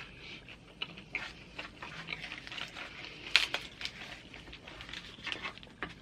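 Close-miked chewing of crunchy tortilla-chip nachos: a run of irregular crackling crunches, the sharpest about three and a half seconds in.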